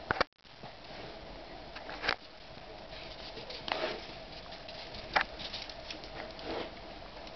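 Footsteps in deep snow: a few soft, scattered crunches a second or so apart, after a short loud crackle and a brief dropout right at the start.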